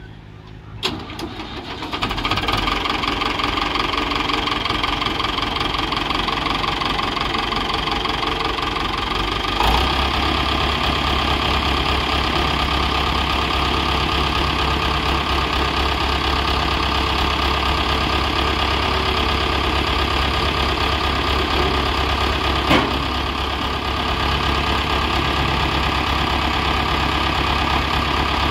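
David Brown 1200 tractor's four-cylinder diesel engine starting about a second in, then running steadily with a diesel knock. About ten seconds in it takes on a deeper, heavier rumble.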